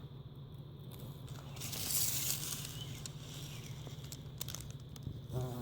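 Rustling and crinkling handling noise with a few clicks, loudest about two seconds in; near the end a bumblebee starts buzzing, a steady pitched drone.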